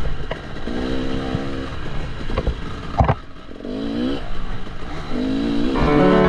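KTM 300 EXC two-stroke enduro engine revving in three short bursts, each rising in pitch, with a sharp knock or clatter about halfway. Music starts just before the end.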